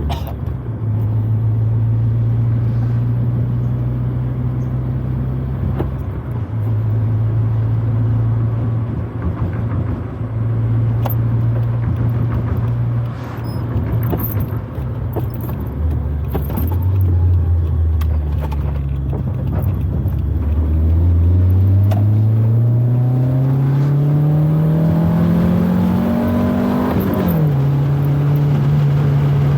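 Proton Wira 1.5 manual's four-cylinder engine heard from inside the cabin, running at a steady pitch that shifts a few times. It then accelerates with a long rising pitch for about seven seconds, and an upshift drops the revs near the end. Scattered light clicks and rattles run throughout.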